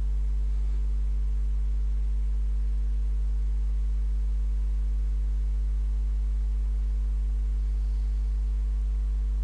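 A steady, unchanging low electrical hum with a few fixed higher overtones, and nothing else over it.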